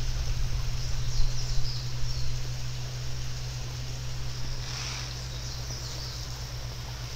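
Outdoor garden ambience: a steady low rumble under a soft hiss, with a few faint high bird chirps about a second in and again around five seconds in.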